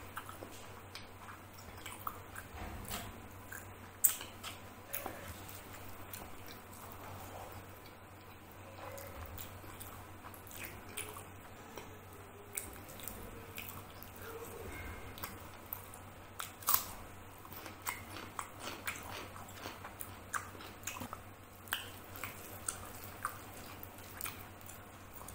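Close-miked mouth sounds of a person eating rice and curry by hand: chewing and wet lip smacks, with fingers squishing and gathering the rice on the plate. Many short sharp clicks are scattered throughout, the loudest about 4 seconds in and again about 17 seconds in.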